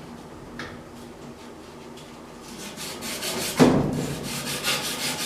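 Abrasive scrubbing on a corroded pipe fitting, cleaning off the corrosion so the joint will take: fast, even rubbing strokes start about halfway through, with one louder knock in the middle of them.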